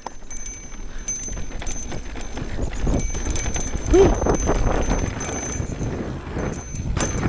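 YT Decoy MX mountain bike riding a rough trail: a low rumble of rolling tyres and rushing air with frequent clicks and rattles from the bike, growing louder as it gathers speed.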